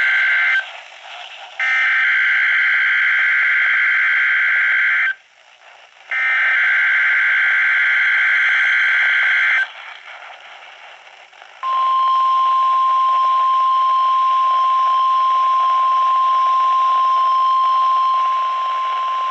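NOAA Weather Radio weekly test signal heard through a weather radio receiver over steady static hiss. It begins with three SAME digital header bursts, each a harsh warbling data screech lasting about three and a half seconds with about a second between them. About twelve seconds in comes the steady single-pitch 1050 Hz warning alarm tone, which drops a little in level near the end.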